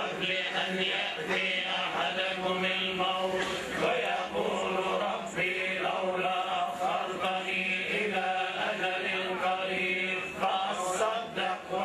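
Men's voices chanting a funeral prayer in a continuous, drawn-out religious recitation.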